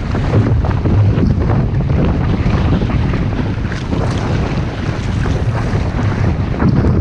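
Wind buffeting the microphone over water rushing and splashing along the hull of an outrigger canoe under way, with paddle blades dipping in. Loud and unbroken, with a steady low rumble and frequent small splashes.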